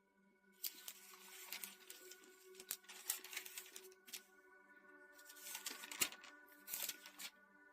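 Soft sustained background music, with pages rustling and turning several times over it, the loudest about six seconds in.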